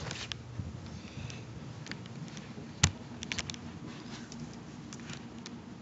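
Handling noise from the camera being picked up, turned and set back down: scattered light clicks and taps, with one sharper knock a little under three seconds in, over a faint steady hum.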